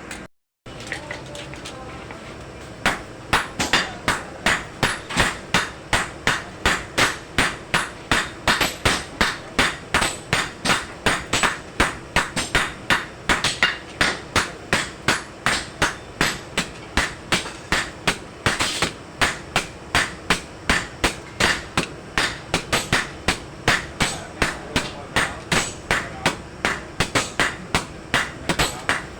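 Blacksmith's hammer striking metal on an anvil in a steady rhythm of about three blows a second while forging a dagger blade, each blow ringing briefly. The blows start about three seconds in.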